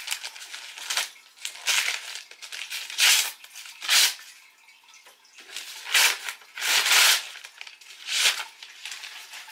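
Brown kraft paper wrapping crinkling and crumpling in a string of short bursts as it is pulled open off a book.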